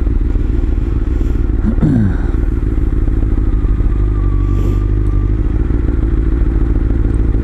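Honda CBR sportbike's inline-four engine running steadily under way at a nearly constant pitch, with a brief falling tone about two seconds in.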